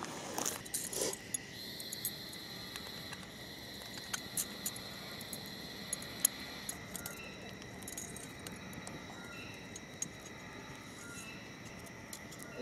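Light metallic clinks and rattles of a folding wire grill being handled and set up, louder in the first second, with scattered clicks over a small wood fire. Steady high insect calls of night crickets run underneath.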